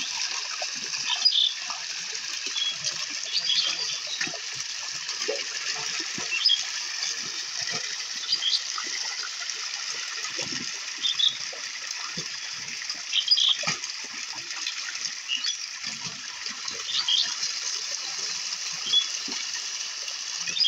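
Pond water splashing and sloshing as a fishing net is hauled through it: irregular splashes over a steady hiss.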